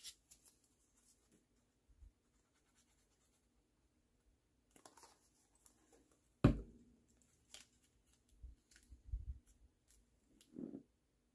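Quiet paper-crafting handling: light rustles and taps of small card panels being glued and pressed onto a card base by hand, with one sharp knock about six and a half seconds in and a few soft thumps a little later.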